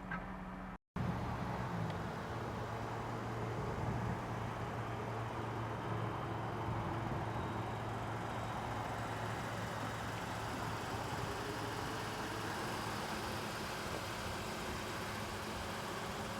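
Ford Interceptor Utility police SUV engine idling steadily with a low hum. The sound cuts out completely for a moment about a second in.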